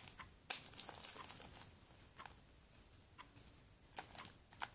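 Homemade borax-free soap slime, still a little sticky, being squeezed and pulled apart in the hands: faint crackling, tearing clicks in short bursts, the densest starting about half a second in and a few more near the end.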